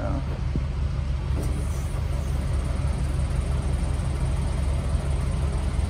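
Steady low rumble of idling vehicle engines, an even drone with no change.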